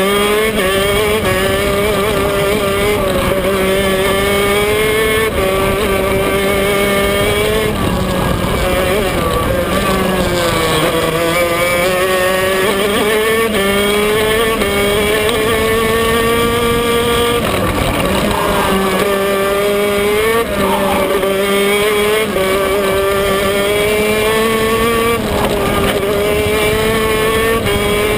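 Maxter 125 cc two-stroke KZ shifter kart engine heard onboard at racing speed, its pitch climbing and then dropping back sharply again and again through the lap.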